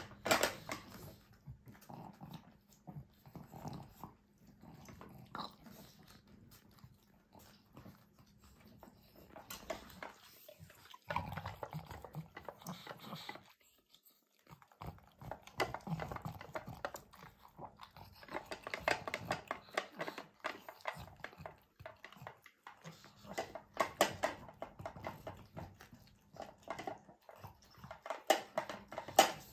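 A pug eating and licking at a raised food bowl: repeated wet smacking and licking in irregular spells, with a short pause about halfway through.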